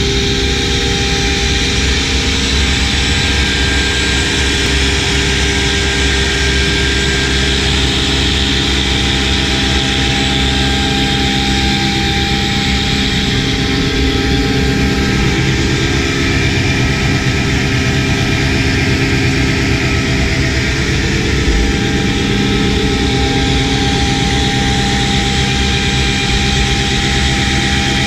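Sasso K600 CNC stone router's spindle running steadily while its water-cooled finger bit cuts a sink opening in a Lapitec sintered-stone slab: a constant machine hum with several held tones over a grinding, splashing hiss.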